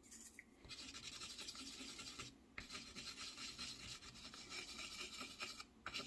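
Wooden stir stick scraping and swirling oil paint around a well of a metal paint palette, a faint steady scratching that pauses briefly twice. Dark brown and dust oil paints are being mixed about half and half into a pin-wash colour.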